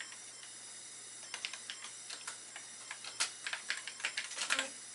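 Keystrokes on a TRS-80 Model 3/4 computer keyboard: a name being typed in answer to the speech synthesizer's prompt, a run of irregular clicks starting about a second in, with a cluster of louder strokes near the end.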